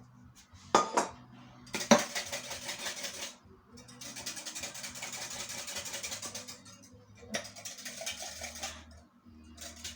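Kitchen dishes and utensils handled while a drink is mixed: two sharp clinks about one and two seconds in, then several stretches of steady hissing noise.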